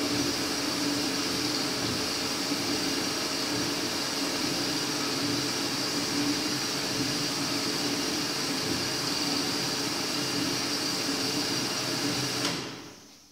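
ARG 220 Plus metal-cutting bandsaw running with a steady whine, then winding down and falling quiet about a second before the end.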